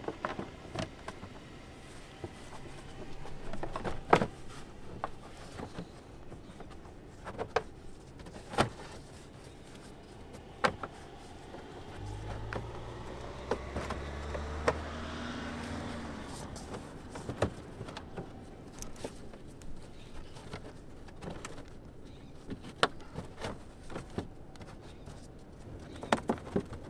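Plastic wheel-arch liner being pushed and knocked back into place by hand behind a front brake caliper: scattered sharp plastic clicks and knocks. A passing vehicle's low rumble swells and fades about halfway through.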